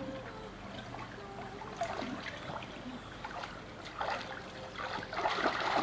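Swimming-pool water splashing and trickling as a small child kicks through it, the splashing louder about four seconds in.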